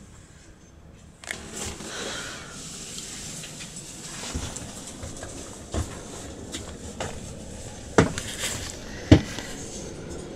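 A few short knocks and clunks over a low background noise, the two sharpest about eight and nine seconds in.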